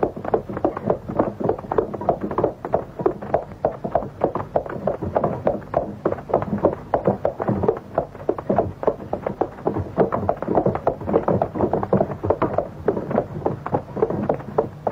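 Hooves of several horses clip-clopping in a quick, uneven patter.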